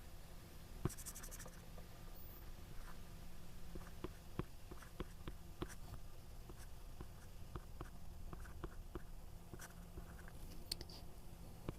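A pen writing out equations: light, irregular scratches and ticks of the tip, over a faint steady low hum.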